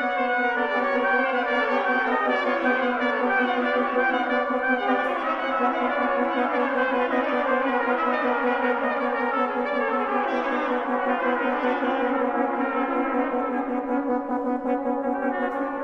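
Brass quintet of two trumpets, French horn, trombone and bass trombone playing together: repeated falling lines over a steady low note.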